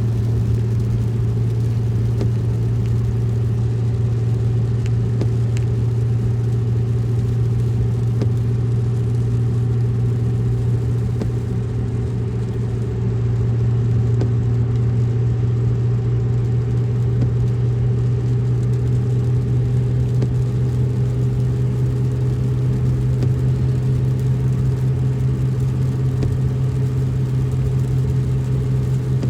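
Steady low drone of a car on the move, engine and road noise heard from inside the vehicle.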